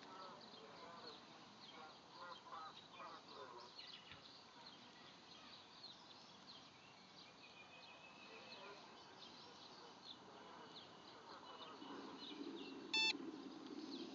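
Faint outdoor ambience with small birds chirping, and one short electronic beep about 13 seconds in.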